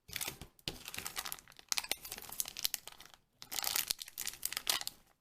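Small plastic blind-bag packaging being torn open and crinkled by hand, a slit already cut in it: a long stretch of crackling, a brief pause, then a second shorter bout.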